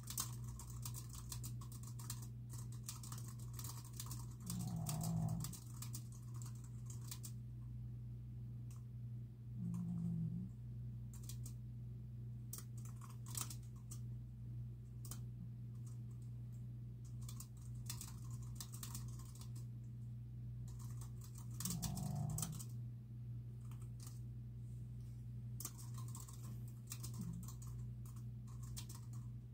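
Typing on a computer keyboard: runs of key clicks with short pauses, over a steady low hum. A dog makes about four short low sounds, near the start and around a third of the way in.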